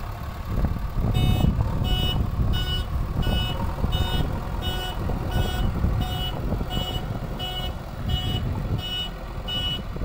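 JCB 3DX backhoe loader reversing: its reverse alarm beeps steadily, about three beeps every two seconds, starting about a second in, over the diesel engine running under load.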